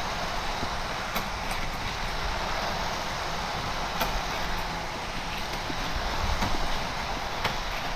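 Hot Wheels track boosters running, a steady whirring noise, while die-cast cars roll and rattle along orange plastic track, with a few sharp clicks of cars knocking through the track.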